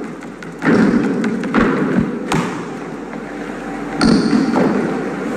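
Several thumps and knocks, the first about half a second in and another about four seconds in, over a steady rushing noise.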